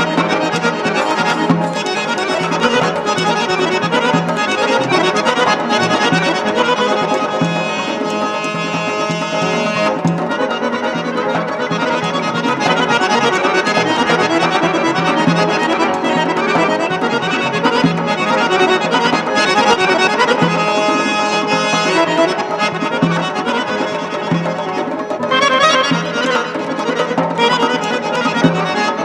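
Azerbaijani garmon, a small button accordion, playing a traditional folk tune: a busy melody over steady, regularly pulsing bass notes.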